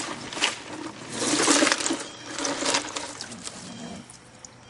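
Hands rummaging in a cooler of caught fish to pull one out: irregular splashing and rattling, loudest about a second and a half in, dying away near the end.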